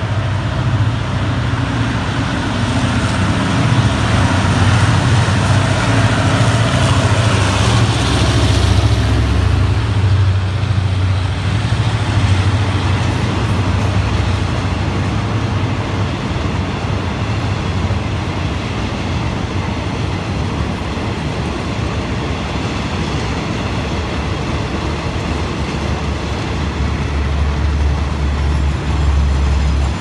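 Hitachi diesel-electric locomotive of the State Railway of Thailand running past with a deep engine drone, loudest through the first ten seconds or so. After it comes a long rake of passenger coaches rolling by with steady wheel-on-rail noise.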